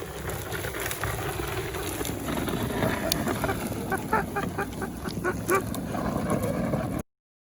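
Car driving slowly over a rough dirt road: a steady low rumble, with a quick run of short squeaks about four to six seconds in. The sound cuts out abruptly near the end.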